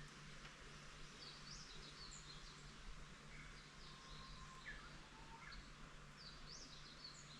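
Faint chirping of small birds: many short, quick up-and-down calls, with a few lower whistled notes, over a steady low hum.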